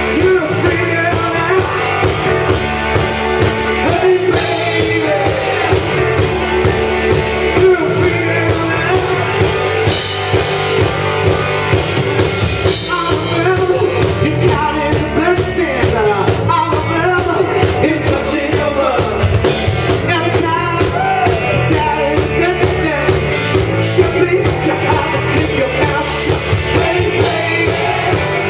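Rock band playing live: upright piano, electric guitars, bass and drum kit, with a lead singer.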